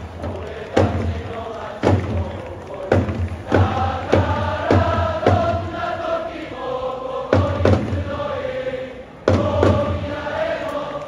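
Football supporters' section singing a team chant in unison, punctuated by loud thumps in time with the singing.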